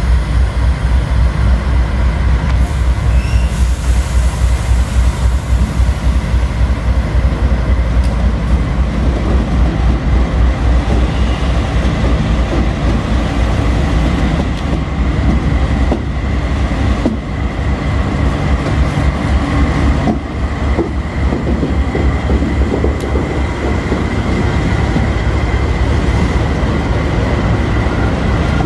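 Diesel-electric freight locomotives, led by a GE AC44i, passing close at low speed with a deep, pulsing engine rumble. A steady high-pitched whine runs underneath, and scattered clicks and clacks come from the wheels over the rail joints.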